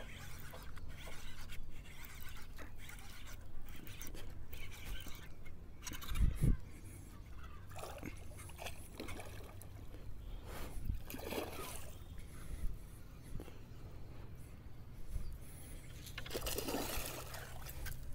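Water splashing and sloshing at the surface beside the boat, in several short bursts, as a fish thrashes on the line.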